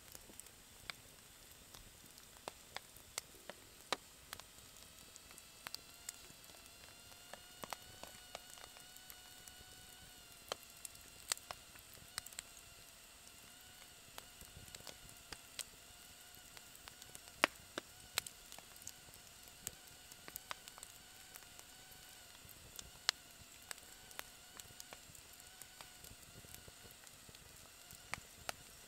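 Wood campfire crackling, with sharp irregular pops and snaps and one louder pop just past halfway. From about five seconds in, a faint thin whistle from the burning wood rises slightly and then holds steady.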